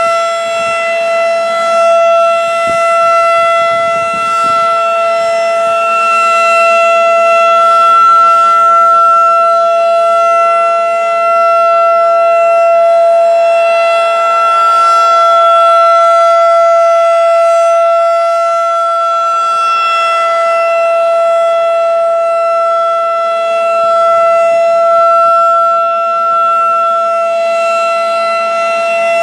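Federal Signal 2001-DC roundback outdoor warning siren running at full speed in a test, sounding a steady held tone that swells and fades slowly in loudness.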